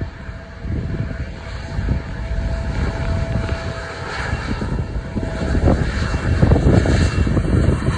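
Fuji Dream Airlines Embraer regional jet's turbofan engines running on the runway: a heavy rumble with a steady whine, growing louder toward the end.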